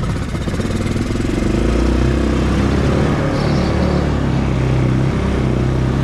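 Four-wheeler (ATV) engine running under throttle as it is ridden, getting louder about a second and a half in and then pulling steadily.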